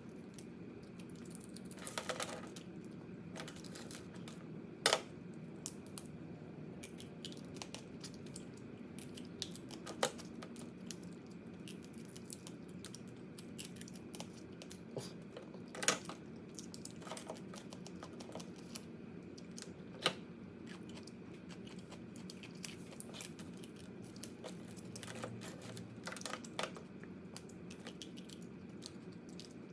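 Close-up eating of crab: crab shell cracking and crunching, with many small scattered clicks and a few louder single cracks several seconds apart, over a steady low hum.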